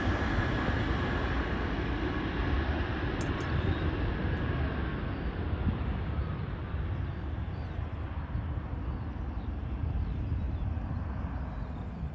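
Jet airliner's engine noise fading away as the aircraft moves off, its higher part dying out first.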